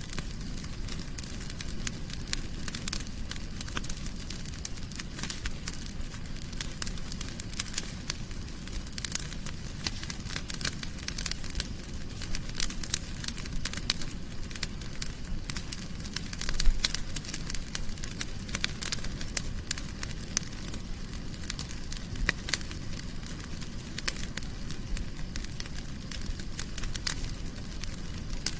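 Wood fire crackling in a fireplace: dense, irregular snaps and pops over a low rumble of the flames, with one louder pop a little past the middle.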